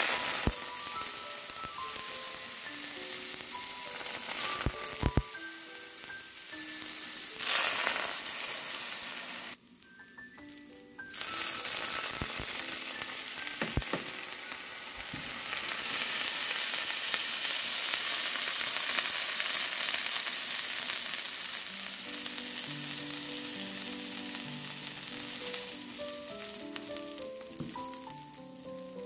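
Sweetened milk poured into a hot buttered pan, hitting the surface and sizzling hard around frying bread as it bubbles and cooks down. The sizzle starts suddenly, cuts out briefly about ten seconds in, then carries on and eases off near the end.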